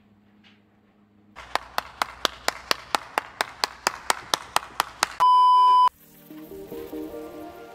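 A single person clapping steadily, about four or five claps a second, stopped by a loud, flat electronic beep lasting under a second; music begins right after.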